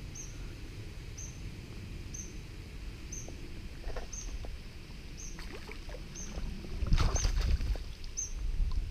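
A hooked chub splashing in the shallows as it is drawn into a landing net, loudest about seven seconds in, over a steady low rumble. A short high chirp repeats about once a second throughout.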